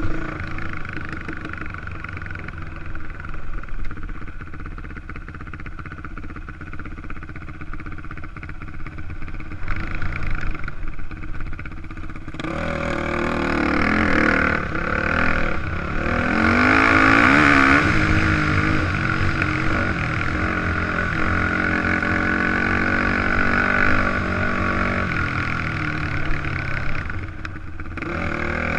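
Yamaha dirt bike engine running while riding a trail, heard from a helmet-mounted camera. About twelve seconds in the throttle opens and the engine gets louder, its revs rising and falling, then it eases off again a few seconds before the end.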